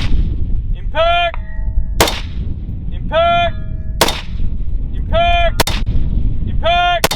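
Precision rifle firing a steady string of shots, each followed about a second later by the ring of the bullet hitting a distant steel target: four shots and four hits, with a fifth shot near the end. Wind rumble runs underneath.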